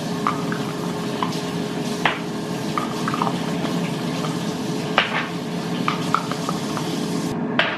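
Small glass jars and plastic screw lids clinking and tapping on a countertop as the lids are put on, a few separate clicks, over a steady rushing hiss and a faint steady hum.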